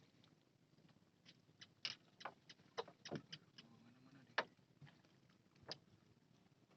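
Faint, irregular light clicks and taps, about a dozen, with the sharpest one about four and a half seconds in.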